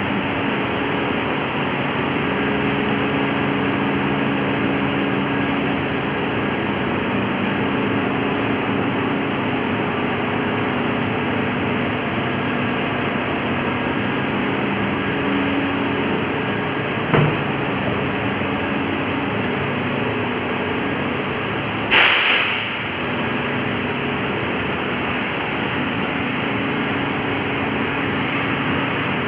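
Diesel generator set running steadily under power, a dense even engine and alternator drone with a low hum. A short click comes about two-thirds of the way through, and a brief, louder burst of noise, the loudest moment, follows a few seconds later.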